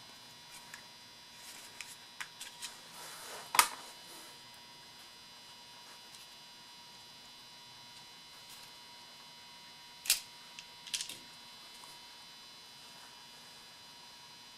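Small parts of a Saab 9-3 ignition switch assembly clicking as they are handled during reassembly: a few light clicks, then a sharp click about three and a half seconds in and another about ten seconds in. A steady faint hum runs underneath.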